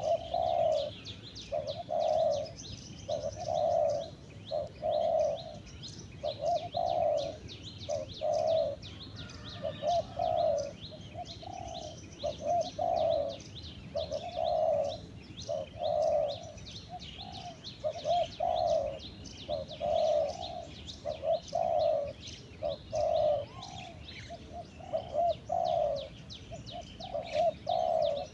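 Spotted dove cooing over and over, short low coos in a steady run of about one a second. Small birds chirp high-pitched throughout.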